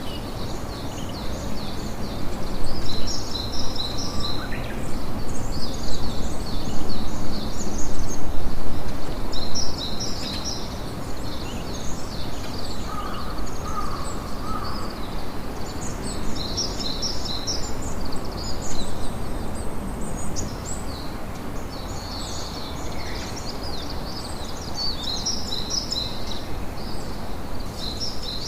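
Campfire crackling steadily while small birds chirp in repeated high trilling phrases over it.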